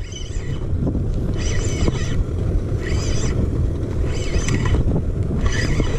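Steady low rumble on a moving fishing boat, from wind and the running boat motor, with short high-pitched whirring bursts repeating about every second and a quarter as a spinning reel is cranked.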